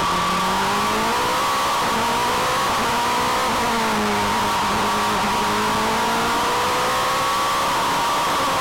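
Single-seater formula race car heard from on board, its engine pulling hard with the pitch climbing slowly and dropping back a few times as it accelerates between corners, over a steady rush of wind and road noise.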